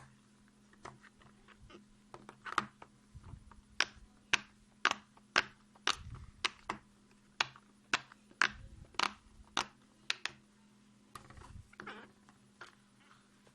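Silicone butterfly pop-it fidget toy being pressed, its bubbles popping in a string of sharp clicks, irregular at first and then about two a second through the middle, with a few dull thumps of handling.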